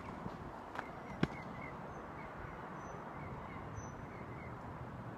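A fainter knock, then a sharp tennis racket-on-ball hit a little over a second in as the ball is returned in a rally. After that, steady outdoor background with faint bird chirps.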